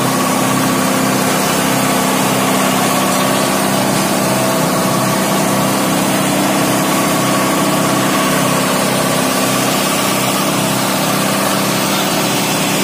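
A fire engine's engine running steadily at constant speed, a continuous hum that does not change.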